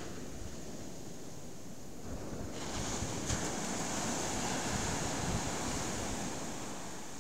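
Surf breaking on a sandy beach in rough sea: a wave breaks and its foam washes up the sand with a rising hiss about two and a half seconds in, fading near the end, over a low rumble of wind buffeting the microphone.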